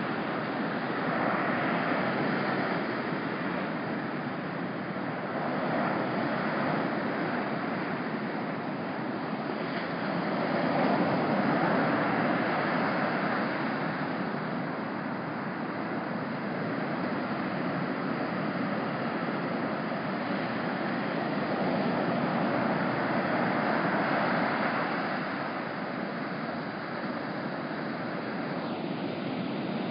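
Ocean surf breaking and washing on the beach, an even rush that swells and fades every few seconds as waves come in.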